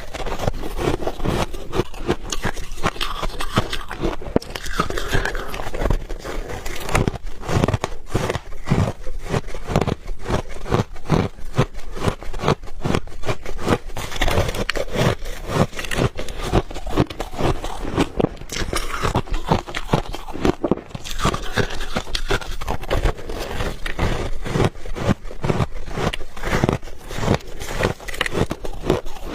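Close-up crunching of refrozen ice balls being bitten and chewed, a dense, irregular run of sharp cracks and crunches.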